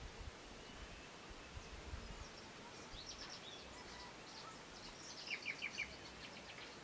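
Birds chirping against a steady outdoor background hiss: scattered short high chirps, with a quick run of four louder notes a little after five seconds in.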